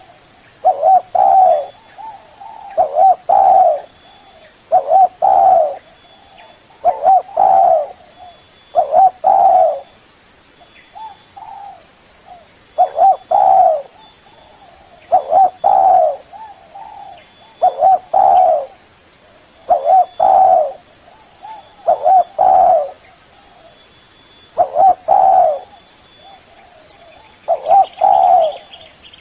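Spotted dove cooing: short phrases of a few low, hollow coo notes repeated about every two seconds, with a short pause about ten seconds in.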